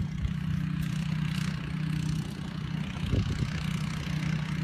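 A steady, low engine hum, like an engine idling, with a few dull thumps near the start and about three seconds in.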